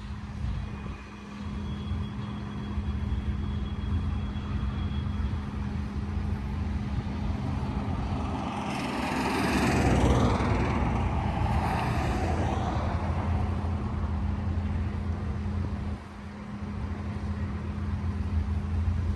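BNSF double-stack container freight train rolling past, a steady low rumble of wheels on rail with a constant low hum. It swells louder for a few seconds around the middle.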